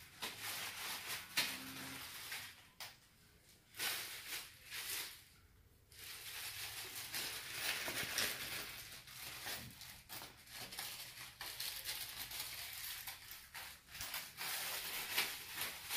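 Small plastic parts bag crinkling and rustling as hands dig through it, with light clicks of small parts and wires being handled. It goes on and off, pausing briefly about three seconds and five seconds in.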